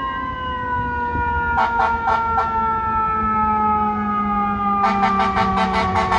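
Fire engine siren approaching: a wailing tone slowly falling in pitch, overlaid with bursts of a rapid pulsing siren sound, about six pulses a second, around two seconds in and again from about five seconds in.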